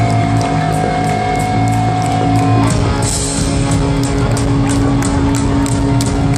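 Live rock band playing loud through a concert PA: electric guitars over drums with regular cymbal strikes. A long held high note stops about two and a half seconds in.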